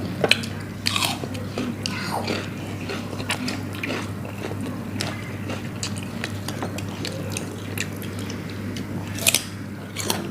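Close-miked eating: biting and chewing food, with scattered wet clicks and crunches, over a steady low hum.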